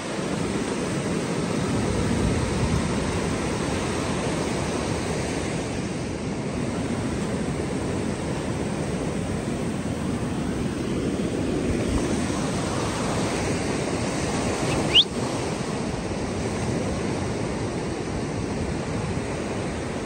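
Ocean surf washing in and breaking steadily, with some wind on the microphone. About three-quarters of the way through, a single short, high chirp rises sharply in pitch.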